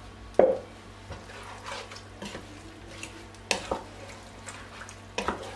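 Wooden spatula stirring thick, wet okra soup in a pot, with three sharp knocks of the spatula against the pot, the loudest about half a second in.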